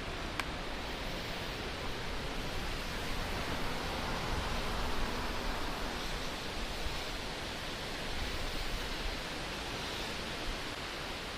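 Steady rushing of flowing creek water, an even hiss without any distinct events.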